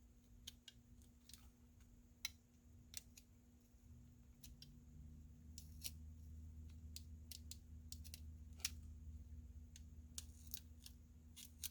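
Faint scattered clicks and light scrapes of a craft knife cutting through double-sided adhesive tape on a phone frame, with a faint low hum coming in about four seconds in.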